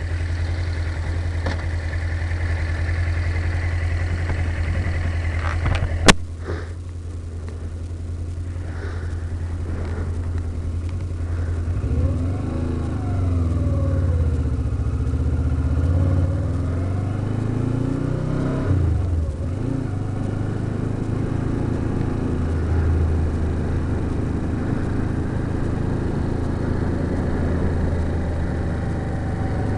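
Motorcycle engine, heard from inside the rider's helmet, ticking over steadily, with one sharp click about six seconds in. It then rises and falls in pitch as the bike accelerates round the test circuit, drops away sharply near the middle, and settles back to a steady run.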